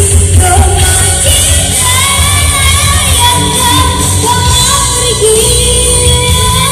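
Young boy singing into a handheld microphone over amplified musical accompaniment, holding long notes and sliding between pitches.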